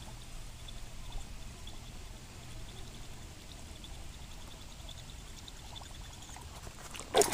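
Buzzbait being retrieved across the water surface, its blade giving a faint, rapid ticking squeak over soft water noise. A sudden louder commotion comes near the end.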